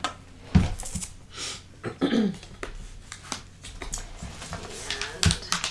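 Small scissors trimming paper backed with double-faced tape: scattered sharp snips and paper handling, with two heavier knocks, about half a second in and near the end.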